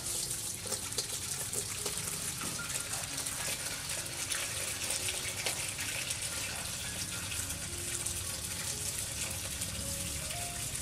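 Tap water pouring steadily into a stainless steel basin, with light splashing as vegetables are washed by hand in the water.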